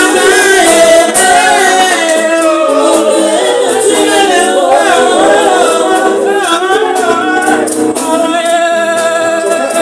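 Live Congolese rumba band, with male and female vocalists singing together in harmony over the band's percussion.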